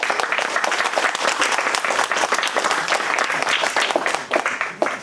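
Audience applauding, thinning out to a few last separate claps near the end.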